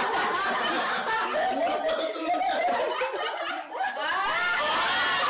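A group of people laughing and chuckling together, mixed with some chatter, with the laughter swelling near the end.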